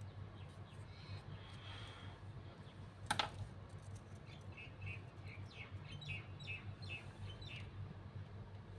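Small birds chirping in the background, a quick string of short falling chirps in the second half, over a steady low hum; a single sharp click about three seconds in.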